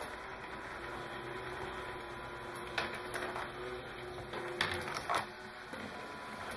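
Small electric motors and plastic gears of a Fischertechnik model factory running with a steady hum. A few sharp plastic clacks come around three seconds in and again near five seconds in.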